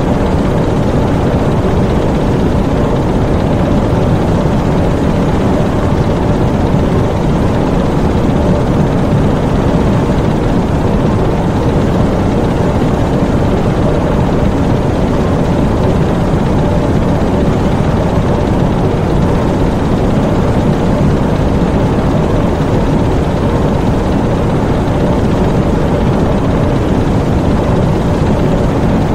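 Diesel engines in a U-boat engine room running steadily: a loud, dense, unchanging drone with a faint hum of steady tones in it.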